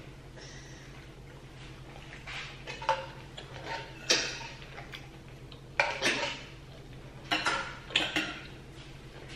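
Metal cutlery clinking and scraping against dishes while eating, with scattered clinks of irregular spacing, the loudest about four and six seconds in, over a low steady hum.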